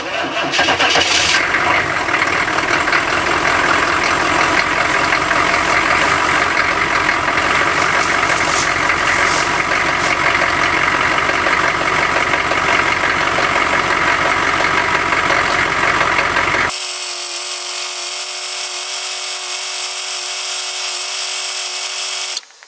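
Cold start of a 1993 Chevrolet pickup's diesel V8 after sitting since last fall, on one charged battery: it catches right away and runs with a steady diesel clatter. About 17 seconds in, the sound changes abruptly to a steady hiss with a faint hum and no low end.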